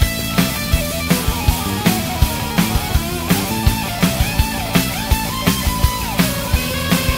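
Punk rock band recording: a drum kit keeping a steady beat of about three hits a second, with a wavering melody line on top.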